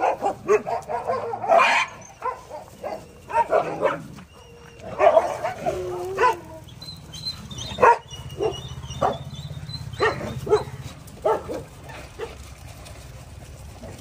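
A large pack of street dogs barking and yipping in short, overlapping calls, excited at being fed. The calls come thickest in the first few seconds, then more sparsely.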